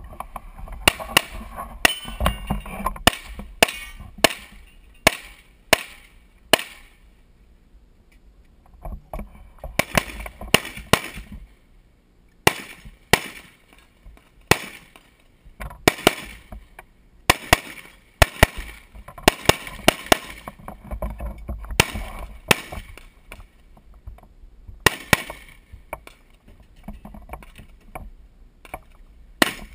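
Gunshots in quick strings: several dozen sharp shots come in rapid groups, separated by pauses of one to a few seconds, with the longest lull about a third of the way in.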